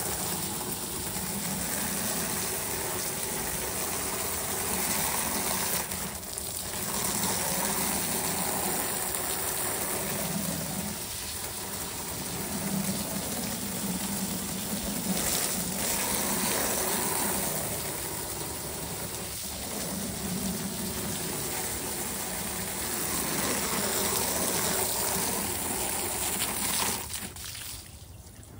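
A stream of water from a garden hose spraying onto a pleated pool filter cartridge and the concrete around it, a steady splashing rush that swells and eases as the stream moves, then stops near the end.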